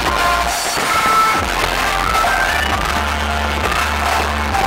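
Music with long, held bass notes and a steady beat; the firework bursts are not distinct over it.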